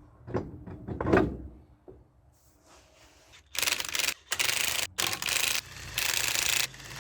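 A few knocks, then a run of loud rubbing or scraping strokes, each about half a second to a second long, starting a little past the middle.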